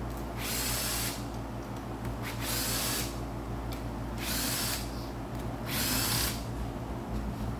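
Cordless impact gun spinning out the 10 mm rocker arm shaft bolts on a Gen 3 Hemi cylinder head, run in several short bursts of under a second each with pauses between, one bolt after another. A steady low hum sits underneath.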